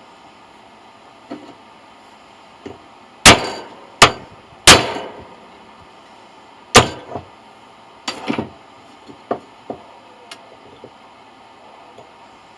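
A hammer striking metal: three sharp, ringing blows less than a second apart, a fourth about two seconds later, then a few lighter knocks and clinks.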